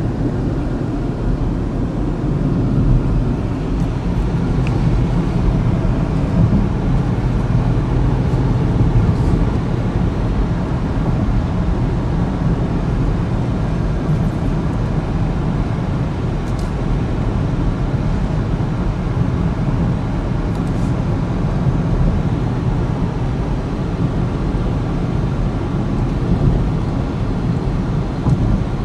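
Steady road and engine rumble heard inside the cabin of a 2014 Chevy Equinox with its 2.4-litre four-cylinder, driving along.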